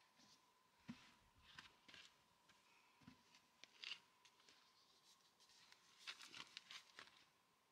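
Faint handling sounds of things being moved about in a van: soft rustles and light clicks and taps, with a denser patch of crackly rustling about six seconds in as a tin is picked up. A faint steady high hum runs underneath.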